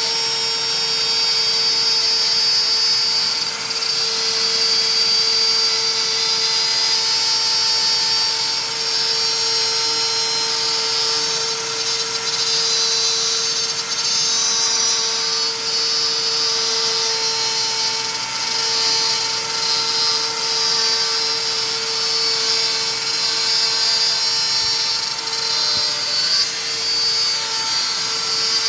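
CNC router's 32,000 rpm spindle cutting, a steady high whine with the hiss of the bit in the material rising and falling as the tool moves along its path.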